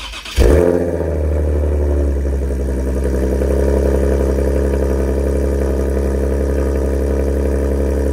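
Nissan 370Z's VQ37VHR V6 starting cold through new long-tube headers and a Torqen catback exhaust: it catches with its loudest moment about half a second in, then settles into a steady idle.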